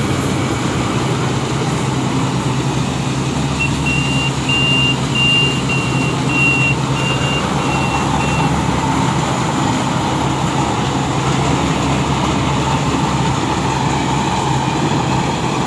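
Rice combine harvester's engine running steadily under load. From about four seconds in, a warning beeper sounds a run of about nine short high beeps for roughly four seconds.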